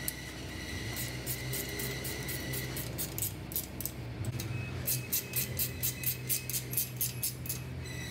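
Hand tools tightening bolts on a go-kart's crash bar support bracket: two runs of quick, light metallic clicks, about four a second, over a faint steady hum.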